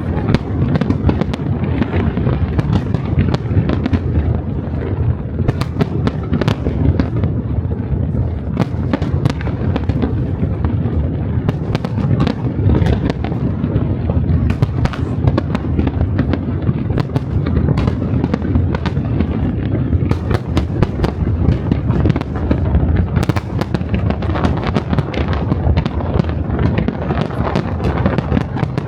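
Large aerial fireworks display: a continuous barrage of shell bursts over a steady low rumble, with many sharp bangs following one another without a break.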